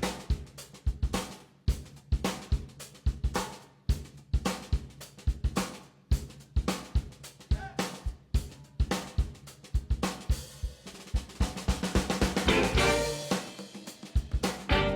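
Background music led by a drum kit playing a steady beat, with other instruments swelling in near the end.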